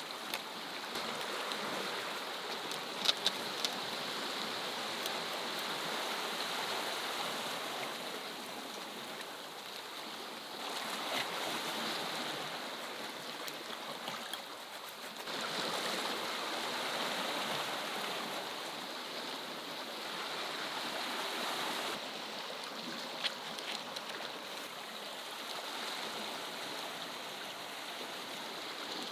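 Sea waves washing over a rocky shore, a steady rush that swells and eases every few seconds. A few short clicks about three seconds in and again near the end.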